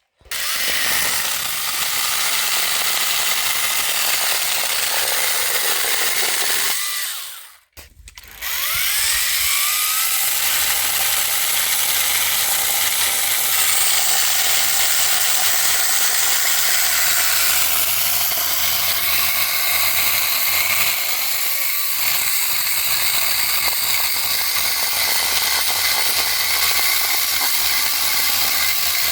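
Battery-powered pole chainsaw with a brushless motor, the Parkside 40V multi-tool's pole saw attachment, running and cutting through wood with a rattling chain. It stops briefly about eight seconds in, then spins up again with a rising whine and keeps cutting.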